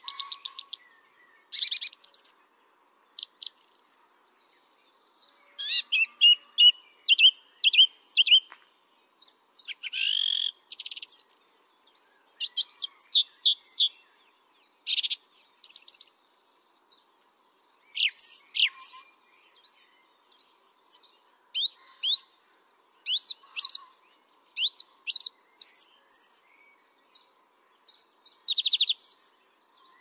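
Song thrush singing: a string of short, varied phrases of rapid, high notes, with brief pauses between phrases.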